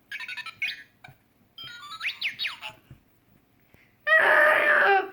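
A child's voice imitating R2-D2's beeps and whistles: quick pitched chirps, then sweeping rising and falling whistle-like glides. Near the end comes a loud harsh squeal lasting about a second.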